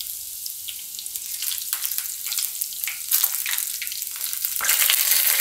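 Hot oil sizzling and crackling in a kadai as cumin seeds, garlic cloves and whole dried red chillies fry for a tempering (vaghar), a steady hiss dotted with quick pops. The sizzle swells louder about four and a half seconds in.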